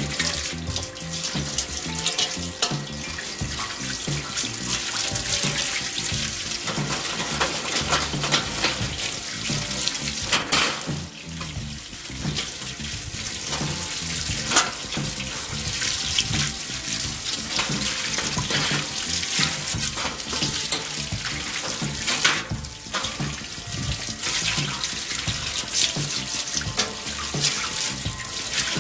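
Garden hose spraying water over a kettle charcoal grill to rinse it, a steady hiss that dips briefly about eleven seconds in and again about twenty-two seconds in. Background music plays underneath.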